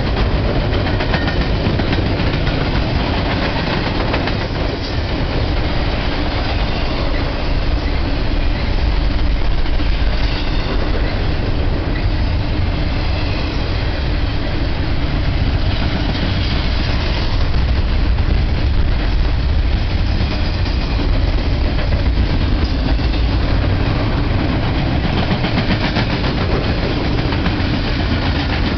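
Double-stack intermodal freight train's container well cars rolling past: a steady, loud rumble of steel wheels on the rails.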